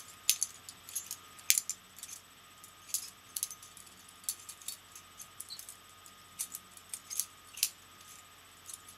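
Butterfly knife being flipped through a twirl trick: its metal handles and blade clack together in sharp clicks, in quick irregular clusters, with a few louder clacks as the handles snap shut or open.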